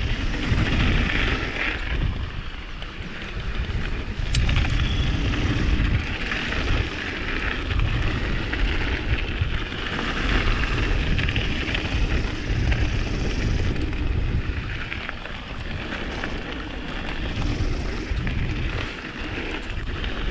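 Wind rushing over a chest-mounted GoPro Hero 7 Black's microphone, with the uneven rumble of mountain-bike tyres running over a trail and a sharp click about four seconds in.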